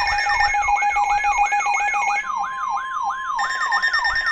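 Emergency alert tones: several steady electronic tones layered with a whooping siren sweep that repeats about three times a second. The steady tones shift in pitch about two seconds in and again about three and a half seconds in.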